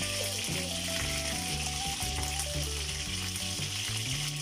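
Chicken wings frying in shallow oil in a nonstick frying pan, sizzling steadily, while they are turned over with a slotted spatula.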